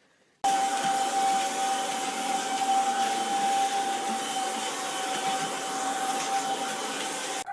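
Steady machine-like whirring noise with a constant whine, starting abruptly about half a second in and cutting off near the end.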